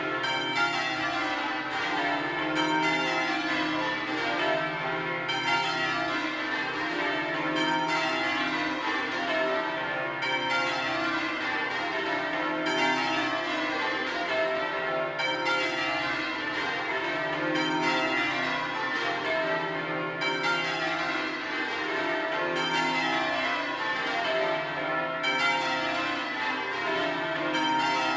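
Ring of twelve church bells (Mears and Stainbank, 1956, tenor in C) being change rung: an even, unbroken stream of bell strikes, each round of the twelve coming about every two and a half seconds.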